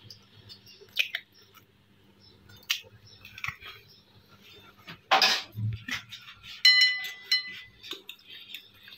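An egg being cracked open by hand and dropped into a ceramic bowl: scattered light clicks of shell, with a louder knock about five seconds in. Near the end, a metal fork clinks against the bowl with a short ringing note as mixing begins.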